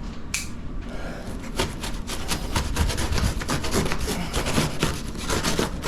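Packaging of newly delivered toolboxes being worked open by hand: a fast run of scraping, rubbing strokes that starts about a second and a half in.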